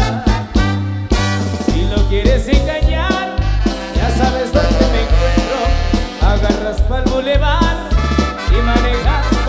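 Loud dance music with a steady beat and a pulsing bass line.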